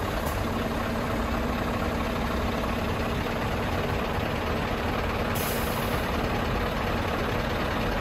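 Articulated truck's tractor unit idling with a steady hum while its air suspension is raised to take the trailer's weight off the landing legs; a brief high hiss of air a little past five seconds in.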